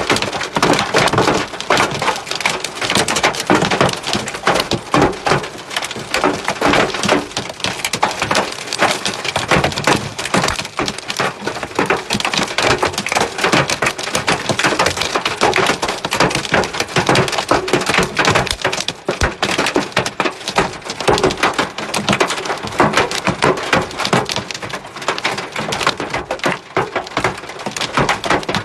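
Heavy hail falling, hailstones striking hard surfaces in a dense, continuous clatter of sharp clicks.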